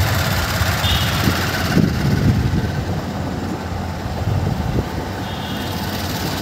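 Steady low rumble of motorcycle engine and traffic noise, heard while riding a motorcycle on a city road, with two brief high beeps or chirps about a second in and near the end.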